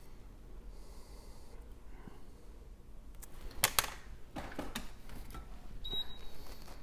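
A few short sharp clicks and taps of small repair tools and phone parts being handled, the loudest pair a little past the middle, with softer ones just after.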